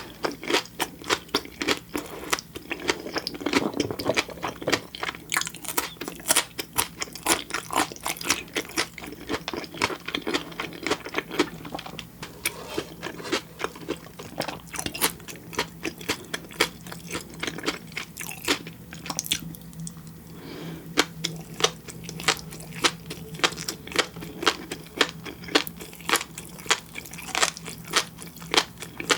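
Close-miked chewing of crunchy food: a steady run of quick, sharp, irregular crunchy clicks and pops from the mouth.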